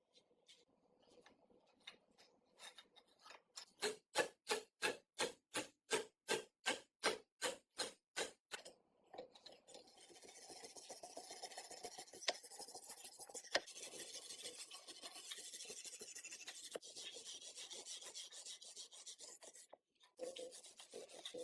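Hand abrading of a rusty metal part, of the kind done to remove rust from sewing-machine parts. It starts as a run of back-and-forth strokes, about three a second, then turns to a steady, hissing scrub with a few sharp clicks.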